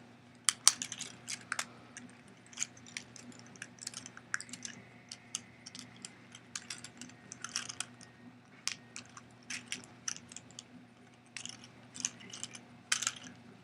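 Irregular small clicks and scrapes of a hard-plastic Transformers figure's joints and panels being handled and moved during its transformation.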